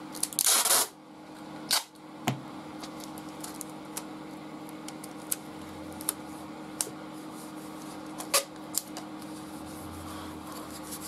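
Clear packing tape pulled off its roll in a brief rip about half a second in, then scattered clicks and light crackles as the tape is laid and pressed flat by hand over a paper pattern on a wooden board.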